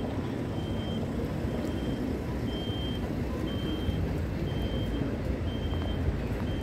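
City street traffic: a steady rumble of passing vehicles, with a short, high electronic beep repeating about once a second.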